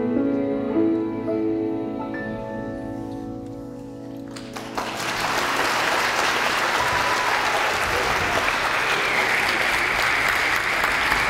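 A choir with piano ends a piece, its last notes held and fading for about four seconds. Then audience applause starts suddenly and goes on steadily.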